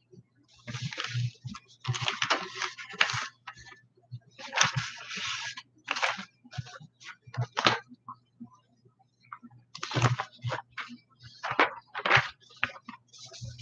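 Sheets of paper rustling and shuffling in irregular bursts as documents are handled and leafed through, with a few light clicks and a faint steady low hum underneath.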